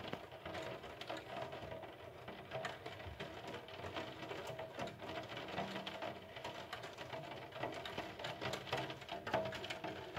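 Steady rain, a dense patter of drops ticking close by.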